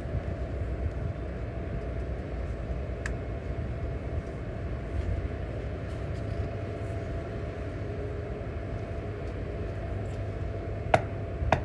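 A machine running steadily: a continuous low rumble with a constant tone above it. A sharp click sounds about three seconds in, and a few more come near the end.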